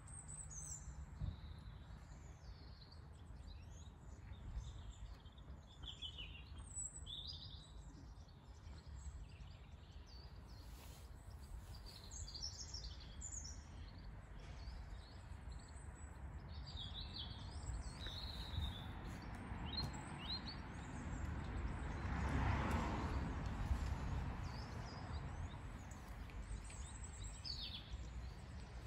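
Small birds chirping and calling in short bursts over a low steady outdoor rumble. About two-thirds of the way through, a rushing noise swells and fades.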